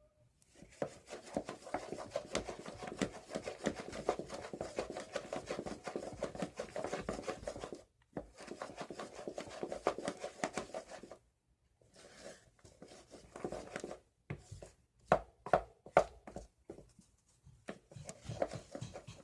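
Fluffy slime of glue and shaving cream being stirred in a bowl: a utensil scraping and clicking rapidly against the bowl, pausing twice briefly, then turning sparser with a few sharper knocks near the end.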